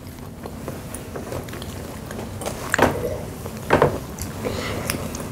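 Quiet eating and handling noises at a table as fried chicken gizzards are bitten and chewed, with two short, sharp sounds about a second apart midway through.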